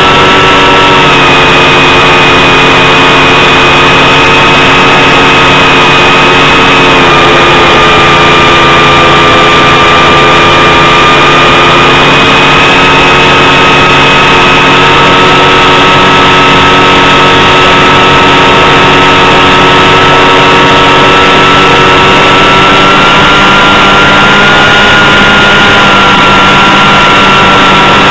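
Small model-aircraft piston engine running steadily in flight, heard very loud from a camera mounted on the plane, with a haze of wind and engine noise around it. Its pitch drops slightly about seven seconds in and rises a little near the end.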